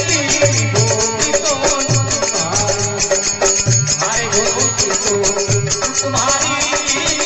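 Rajasthani folk devotional music, instrumental: a gliding melody line over a steady low drum beat, with fast rattling percussion throughout.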